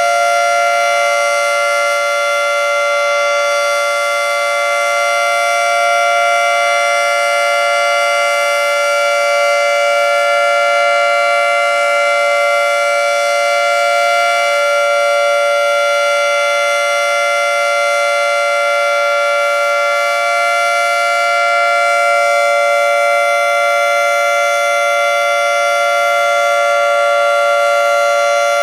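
Federal Signal 2T22A two-tone rotating outdoor warning siren sounding a steady tone at full speed: two pitches held together as a chord. Its loudness swells and fades gently.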